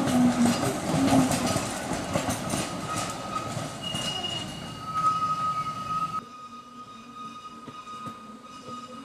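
Narrow-gauge park railway train hauled by the EA 02 battery-electric locomotive running by, wheels clicking over the rail joints with a thin high wheel squeal. The sound drops off suddenly about six seconds in, leaving a quieter steady hum.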